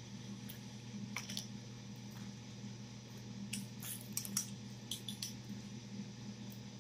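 Eating sounds: short wet smacks and clicks of fingers being licked and fried chicken being chewed, in small clusters about a second in and again around the middle, over a steady low hum.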